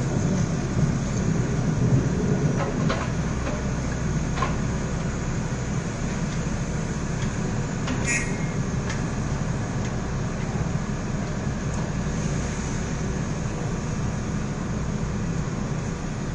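Komatsu PC200 excavator's diesel engine running steadily under work, with a few short metallic knocks and one ringing clank about halfway through.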